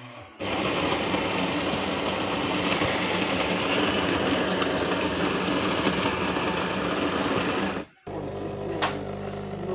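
Krups EA8010 bean-to-cup espresso machine's built-in grinder grinding coffee beans for about seven and a half seconds, then cutting off sharply. The machine then carries on with a quieter, steady buzzing hum.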